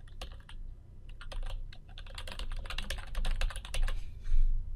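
Computer keyboard typing: a quick run of keystrokes as a web address is typed, thickest in the middle, with one short, louder sound near the end.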